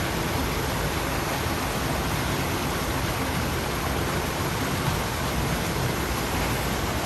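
Steady rushing of water pouring in at a river inlet.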